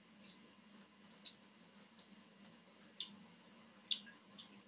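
Short, wet clicks and smacks of a person eating rice and curry by hand, about six in all, the loudest about three and four seconds in, over a faint steady hum.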